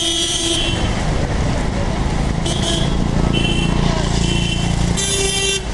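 Busy road traffic: engines running under a steady hum of traffic noise, with vehicle horns honking briefly several times: one cutting off about half a second in, shorter ones in the middle, and a loud blast near the end.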